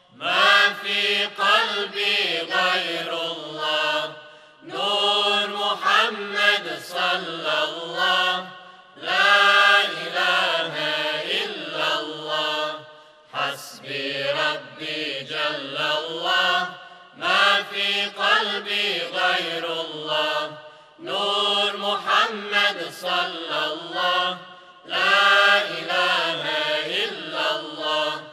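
Male choir singing a cappella in slow, chant-like phrases of about four seconds each, with short breaks for breath between them.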